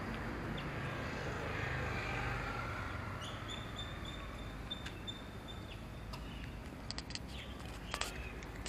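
Steady outdoor background noise, with a thin high chirping tone for a couple of seconds around the middle and a few light clicks near the end.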